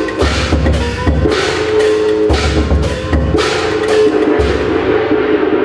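Festival percussion accompanying a ship float: a deep drum beating in groups of rapid strokes, with sharp struck hits and ringing metal tones in a steady rhythm. It begins to fade near the end.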